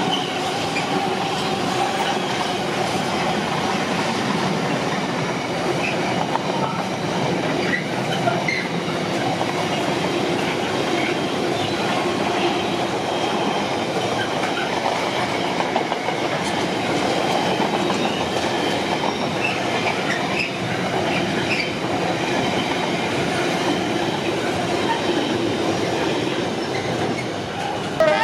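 A train running past on the main line: a steady rumble of wheels on the rails, with scattered clicks and a faint wheel squeal.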